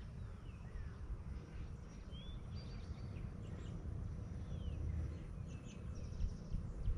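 Several short bird chirps over a steady low rumble.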